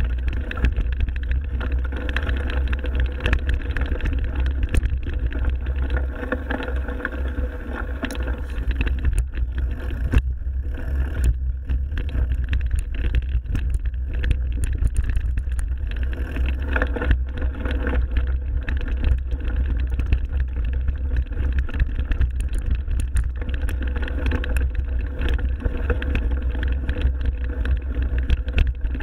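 Mountain bike riding over a forest trail: a steady low rumble of wind and movement on the bike-mounted camera's microphone, with tyre noise and short rattling clicks from the bike.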